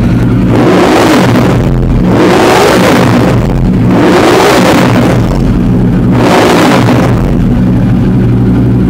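Ducati Diavel's 1200 cc L-twin engine through an aftermarket exhaust, idling and revved about four times, each blip rising and falling back to idle; really loud.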